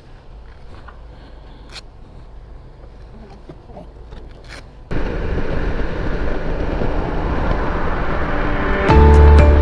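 BMW K1600 touring motorcycle: a low steady idle hum with a few light clicks and rustles, then, about five seconds in, the loud rush of wind and engine at highway speed. Background music with a deep bass comes in near the end.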